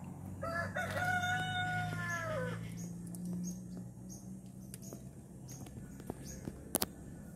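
A rooster crowing once: a short first note, then a long held call that falls in pitch at the end. A pair of sharp clicks follows near the end, over a steady low hum.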